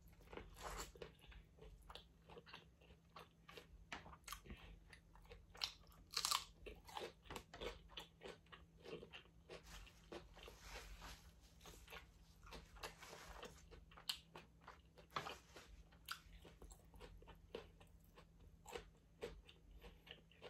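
Quiet close-miked eating: crunchy bites and chewing, with many short, sharp mouth clicks and smacks and a louder cluster of crunches about six seconds in.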